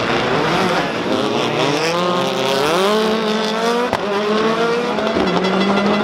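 Hyundai i20 WRC rally car's turbocharged four-cylinder engine pulling hard, its pitch climbing for a second and a half and then holding high. One sharp crack comes about four seconds in.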